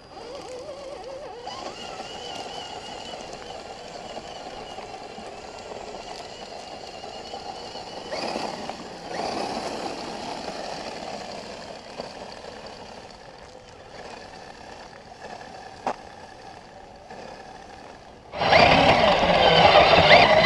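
Homemade RC car running over a gravel road: a steady motor whine mixed with tyre noise on the gravel. It swells briefly about halfway through. Near the end it becomes much louder, heard up close from a camera mounted on the car.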